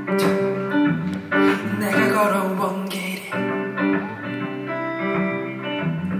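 Live guitar playing the intro of a slow song, with plucked notes ringing over low bass notes.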